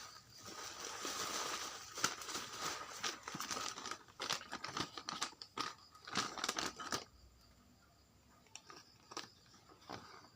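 Packaging crinkling, rustling and tearing with many small clicks while being unwrapped by hand; it stops about seven seconds in, leaving a few light taps.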